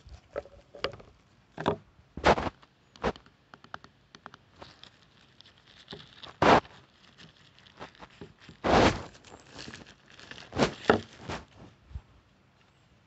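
A thin plastic bag around a portable charger crinkling and tearing as it is unwrapped by hand: irregular rustles and crackles, with one longer rustle about nine seconds in.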